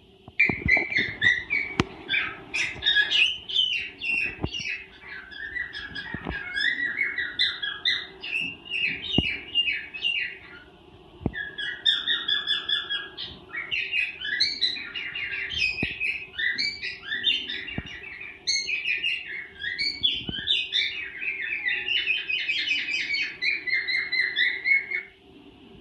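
A cockatiel chirping and whistling in long, fast runs of short notes, with a brief pause partway through, stopping shortly before the end.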